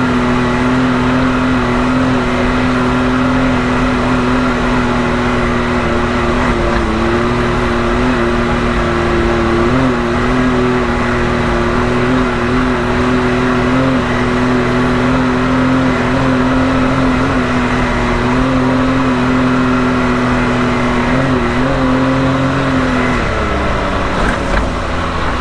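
Can-Am Maverick X3 side-by-side's turbocharged three-cylinder engine running at a steady speed on a dirt road, its pitch falling near the end as it slows.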